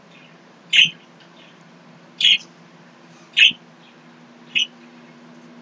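A bird chirping: four short, high chirps spaced roughly a second apart.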